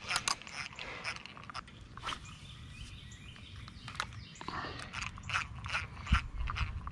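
Antique Luxor spinning reel clicking and scraping as its handle is cranked to retrieve line, a run of quick clicks that turns more even in the second half. A dull thump about six seconds in.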